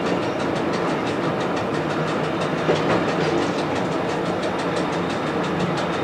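SAR 250 class 'Bluebird' diesel railcar running steadily at speed, heard from inside the leading car: a continuous rumble of engine and wheels on the rails, with one brief knock about two and a half seconds in.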